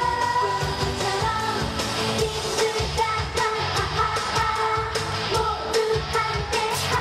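K-pop song sung by a group of women into microphones over a pop backing track with a steady beat.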